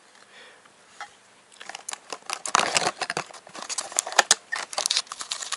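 Hands handling tin can badges and their plastic packaging: rustling with many small clicks. It starts about a second and a half in.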